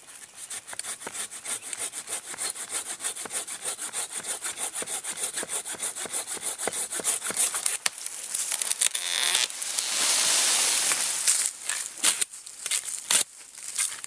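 Corona RazorTOOTH Professional curved hand pruning saw cutting through the trunk of a live sweet gum tree in quick, even back-and-forth strokes, finishing a notched felling cut. About eight seconds in the strokes give way to a few seconds of louder, continuous noise, then irregular scraping.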